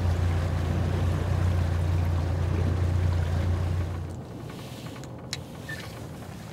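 Boat motor running with a steady low hum while the boat is held in position to anchor. The hum drops away about four seconds in, leaving a softer rush of water and wind.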